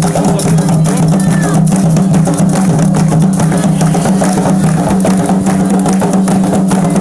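Candomblé ritual drumming: atabaque hand drums beating a dense, steady rhythm.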